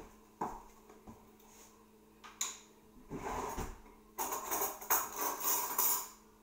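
Kitchen utensils being handled at the counter: a few separate knocks, then two stretches of metal cutlery and kitchenware clattering and clinking, as when a cutlery drawer is rummaged for a spoon.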